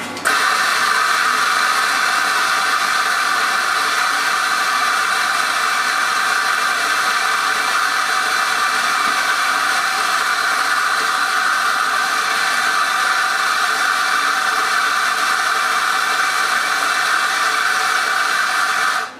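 Electric coffee grinder switched on abruptly and running steadily, grinding coffee beans straight into a paper filter held under its spout.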